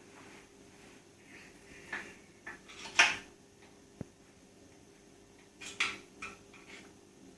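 Scattered metallic clinks and knocks of tools and metal motorbike parts being handled while footrests are fitted. The loudest knock comes about three seconds in, then a sharp tick and a cluster of clatters around six seconds.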